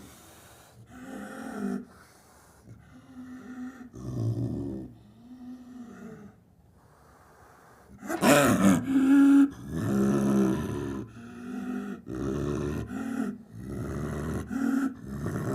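Snow leopard growls and roaring calls in a string of short calls. The first few are softer, then a loud call comes about eight seconds in, followed by several more.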